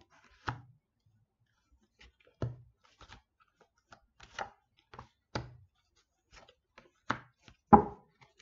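Oracle cards being drawn and laid down one by one on a table: a series of about eight short taps, irregularly spaced, the loudest near the end.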